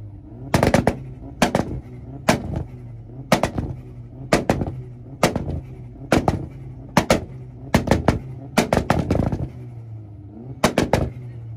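Cars held on two-step launch-control rev limiters: a steady engine note broken by loud exhaust bangs, a quick cluster of sharp cracks about once a second.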